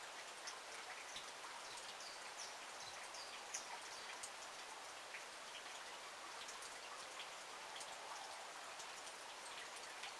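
Faint rain patter: a steady hiss with many small drop ticks scattered through it.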